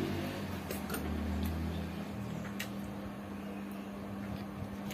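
A person eating rice and vegetables by hand from steel plates: a few short clicks and soft mouth and finger sounds of picking up food and chewing. A steady low hum runs underneath, with a low rumble that dies away about two seconds in.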